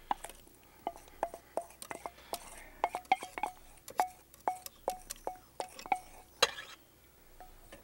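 Light metallic clinks, about two a second, as a small metal bowl of salad dressing is tipped and tapped against a large stainless-steel mixing bowl, each clink briefly ringing. The loudest clink comes about six and a half seconds in.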